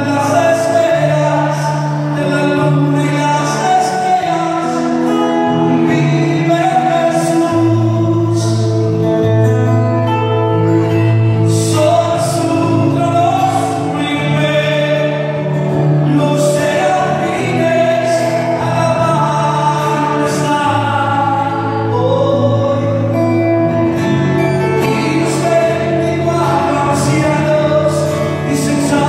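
Live worship music through the church sound system: a man singing a melody over amplified instruments with held low notes.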